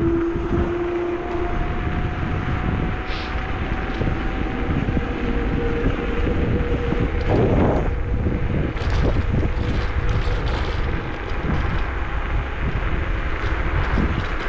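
Electric scooter riding in traffic: steady wind and road rumble with a thin motor whine that slowly rises in pitch.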